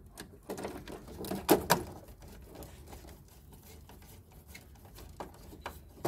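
Scattered light clicks and scrapes of a cable being fitted into a miniature circuit breaker's screw terminal with a screwdriver, a few sharper clicks in the first two seconds and fainter ticks after.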